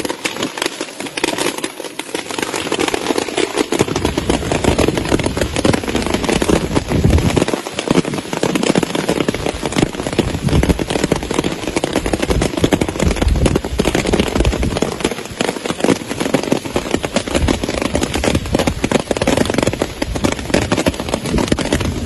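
Hailstones pelting down in a heavy hailstorm: a dense, continuous crackle of countless impacts. A low rumble joins underneath about four seconds in.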